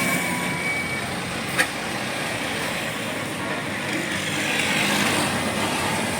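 Road traffic running past, with a rising tyre-and-engine hiss as a vehicle approaches near the end. One sharp click comes about a second and a half in.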